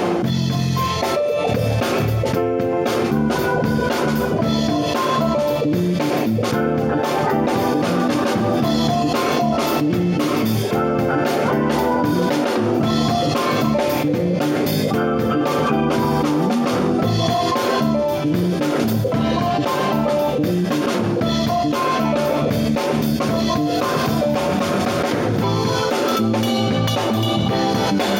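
Keyboard ensemble playing with a drum kit, steady chords and a driving beat without pause.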